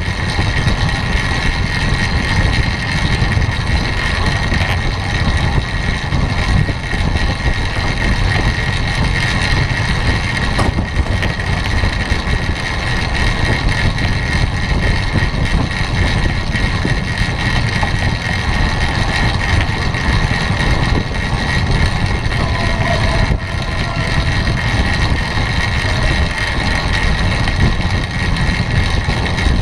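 Steady wind rush and rumble on a bike-mounted camera's microphone as a bicycle rides at about 25 mph on a wooden velodrome track, with tyre noise on the boards and a faint steady high hum over it.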